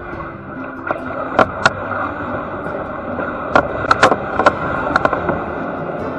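Dry marsh reeds scraping and rustling along a kayak's plastic hull and paddle as the boat pushes through them, with sharp clicks and snaps: two about a second and a half in, then a quick run of them about four to five seconds in.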